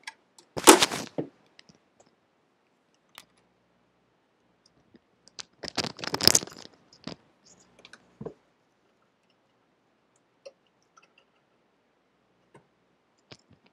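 Handling noise as an SDRplay RSPduo radio receiver is plugged in by its USB cable: a short rustle about half a second in, a longer stretch of scraping and crackling around six seconds in, and a few scattered small clicks.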